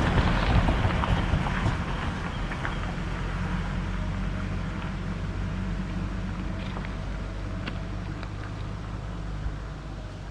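Vehicle running, a steady low hum with road noise that slowly fades, with a few faint ticks.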